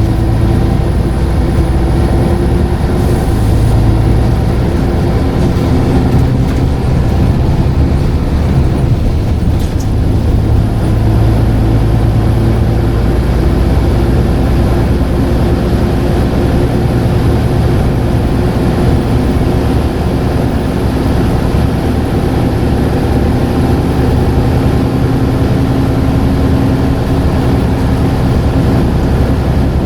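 Scania N94UD double-decker bus's five-cylinder diesel engine running steadily on the road, its drone shifting slightly in pitch as it pulls along.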